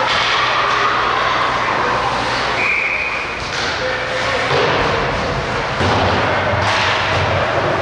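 Ice hockey play in a rink: several thuds and knocks of sticks, puck and boards over a steady din.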